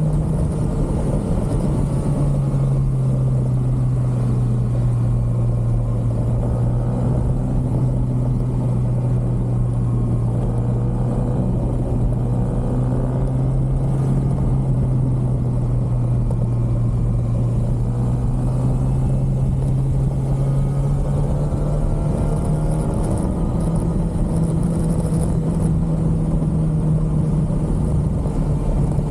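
Stock-exhaust 2023 Kawasaki ZX-6R inline-four running at a steady cruise over a constant rush of wind noise. The engine note drops a little about two seconds in, holds steady, and rises again near the end.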